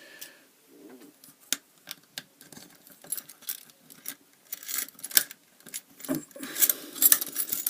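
A bunch of keys jangling, with small metallic clicks and scrapes as a key is handled and worked in a fire brigade (FB) lever lock. The jingling comes in a few short spells, loudest about two thirds of the way through.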